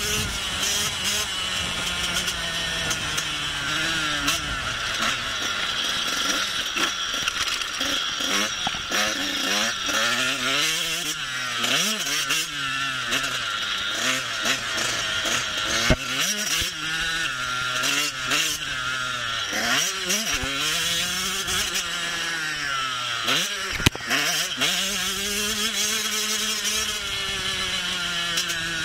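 Husqvarna TC 85's 85 cc two-stroke motocross engine being ridden hard, its pitch climbing and falling again and again as the throttle is worked, with a few sudden drop-offs. Two short sharp knocks, one about halfway through and one near the end.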